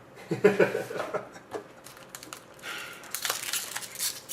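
Handling of a sealed trading-card box and its packaging: scattered clicks and rustling as it is picked up and opened. A brief murmur of voice comes early on.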